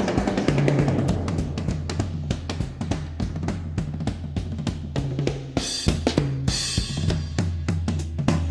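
A drum kit plays a fast beat of bass drum and snare hits over a steady low tone, with cymbal crashes about six and seven seconds in.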